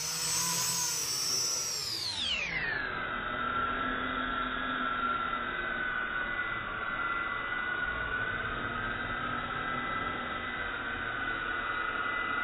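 Toy quadcopter's small electric motors and propellers whining. About two seconds in, the pitch slides steeply down and then holds as a lower, steady drone: the sound slowed down for slow-motion playback.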